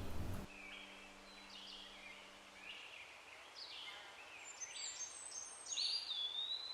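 Songbirds calling in a forest: a string of short chirps and whistled phrases, the loudest about six seconds in, a call that rises and then holds high.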